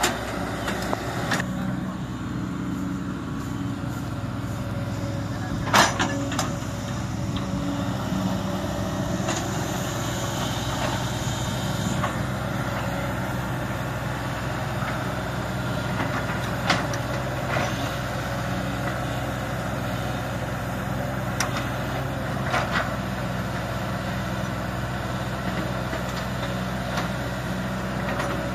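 Sumitomo hydraulic excavator's diesel engine running steadily, with a few sharp knocks, the loudest about six seconds in.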